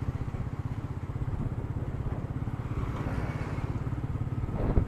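Royal Enfield Meteor 350's single-cylinder engine running at a steady cruise, a fast even beat of exhaust pulses under road and wind noise, heard through an action camera's built-in microphone.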